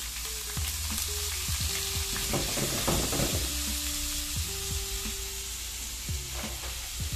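Uncooked rice frying in hot oil in a pan, sizzling steadily as it is stirred, with a rougher stretch of stirring about two to three seconds in. This is the toasting of the rice in oil, the first step of Mexican rice.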